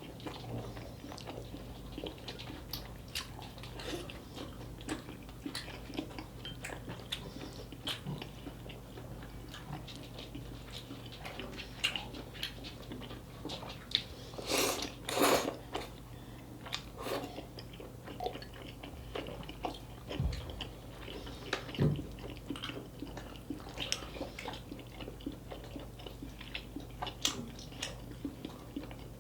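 Close-miked mouth sounds of a person eating cheesy dakgalbi: steady chewing with many small wet clicks and smacks, and a couple of louder bites about halfway through.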